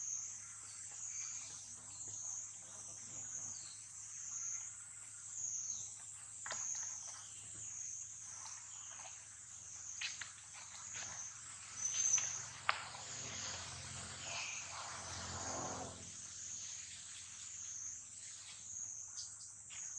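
An insect chorus keeps up a high, shrill drone that swells and dips about once a second. A few sharp clicks come around the middle.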